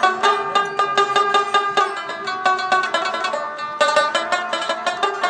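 Background music: a fast, busy plucked-string melody.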